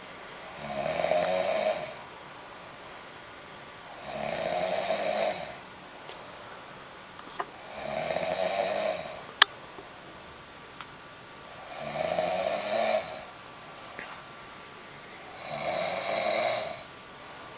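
A person snoring: five long snores, about one every four seconds, with a few faint clicks and one sharp click about nine seconds in.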